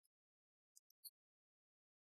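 Near silence, with a few faint, very high ticks about a second in.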